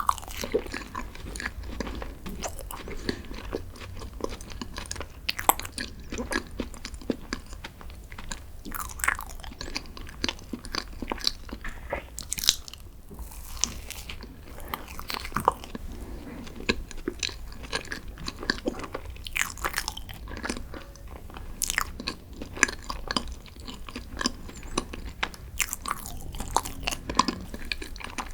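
Close-miked eating sounds: a person biting and chewing green tea desserts, with irregular small crunches and wet mouth clicks throughout.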